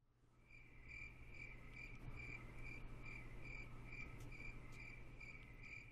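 A cricket chirping faintly and evenly, about two chirps a second, over a steady low hum; it fades in about half a second in.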